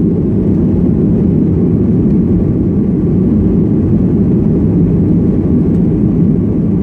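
Steady cabin noise inside an airliner climbing after takeoff: the engines and rushing air make an even low noise without change.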